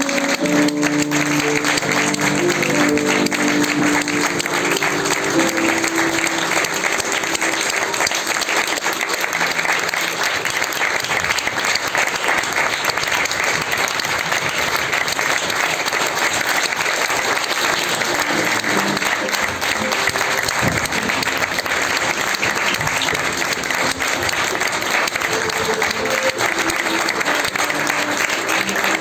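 Audience applauding steadily, with instrumental music playing beneath the clapping; the music's notes come through most clearly in the first few seconds and again near the end.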